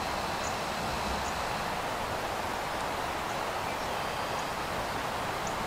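Steady outdoor background hiss with no clear motor sound, and a few faint high chirps.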